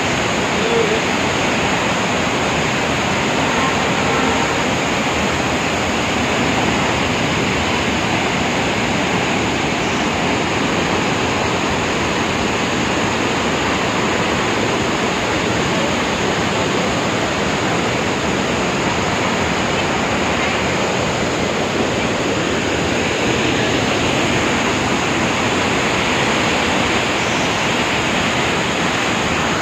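Steady rushing of a large waterfall in monsoon spate, a loud, even noise of falling water.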